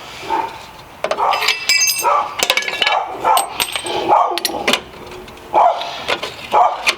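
A dog barking over and over, short barks about once or twice a second. A few ringing metallic clinks sound about a second and a half in and again a little later.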